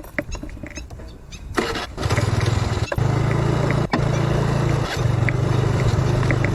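Small single-cylinder engine, a motorcycle's, starting up about two seconds in and then running steadily at low revs, with a few brief dips in the sound. Faint short chirps and ticks are heard before it starts.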